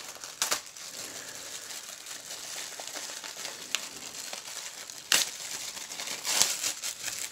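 Plastic poly mailer bag crinkling and tearing as hands pull it open, with a few sharper, louder crackles about half a second in, near five seconds and around six and a half seconds.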